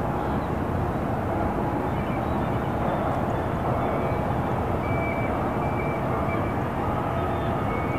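Calm harbour ambience: a steady, distant low rumble, with a few faint high chirps around the middle.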